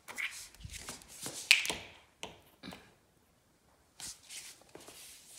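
Scattered light taps and clicks with shuffling on a tiled floor. The sharpest click comes about one and a half seconds in, followed by a quiet stretch of about a second before more light taps.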